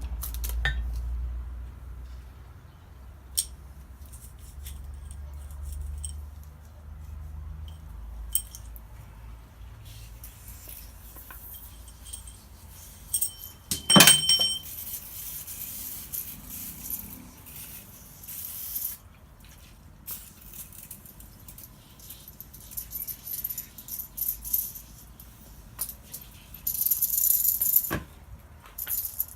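Metal parts and tools being handled on a workbench: scattered clinks and rattles, with one sharp metal-on-metal strike that rings out about halfway through.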